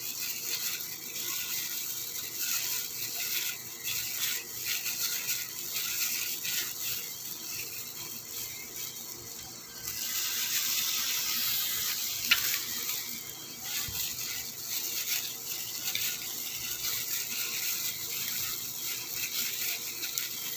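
Batter-coated eggs deep-frying in hot oil: a steady crackling sizzle that gets louder about halfway through, with one sharp click a little after that.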